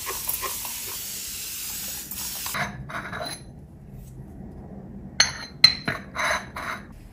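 Spray mister hissing out a continuous mist for about two and a half seconds, then a few shorter sprays and light clinks about five to seven seconds in.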